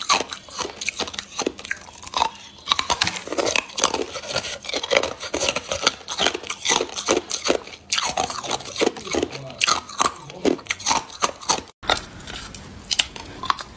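Clear ice being bitten and crunched between the teeth. Many sharp cracks and crunches follow one another in quick succession, with a brief gap near the end before the crunching starts again.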